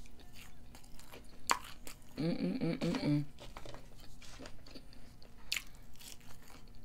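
Close-miked chewing of French fries, with wet mouth clicks and smacks. A short hummed vocal sound comes about two seconds in.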